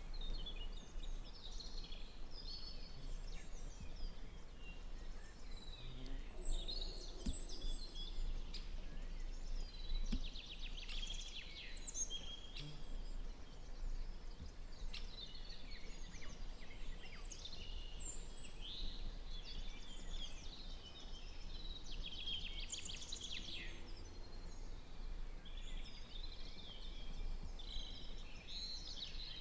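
Several songbirds singing at once: a continuous chorus of overlapping high chirps and trills, over a faint low background hum.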